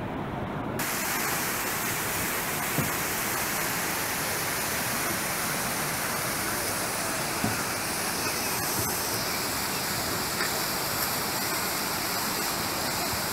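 Rushing whitewater of an artificial slalom canoe channel: a steady, unbroken noise of churning rapids that fills out about a second in.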